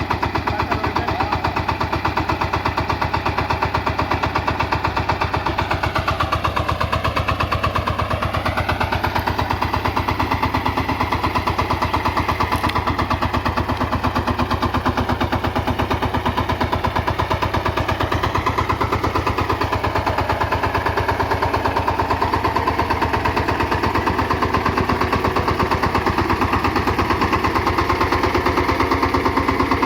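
VST Shakti 130 DI power tiller's single-cylinder diesel engine running with a fast, even chugging beat. Its pitch dips briefly twice, about six to nine seconds in and again around eighteen seconds in.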